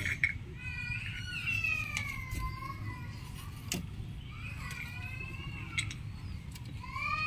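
Rooster giving a warning call: three drawn-out calls that waver and fall in pitch, the last one starting near the end, with a few faint clicks in between.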